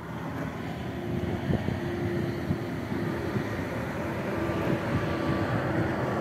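Heavy truck engine running steadily: a low rumble with a faint steady hum above it.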